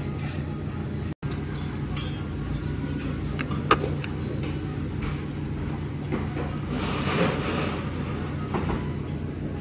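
Steady low hum of restaurant background noise, with a few light clicks and one sharper click a little over three and a half seconds in, fitting chopsticks touching the plate. The sound cuts out for an instant about a second in.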